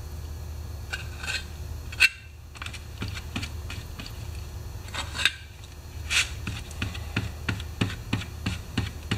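A tool scraping leftover JB Weld epoxy across a cardboard cereal box: a run of short scratches and ticks that come closer together in the last few seconds, over a steady low hum.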